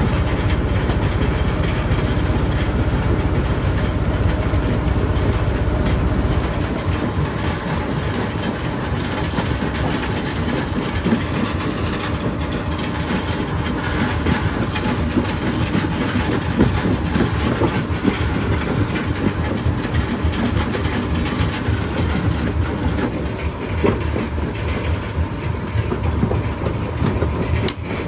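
Stone jaw crusher running, rocks cracking and grinding between its ridged jaws with a heavy rumble and a constant clatter of stone. The deepest rumble eases about six seconds in.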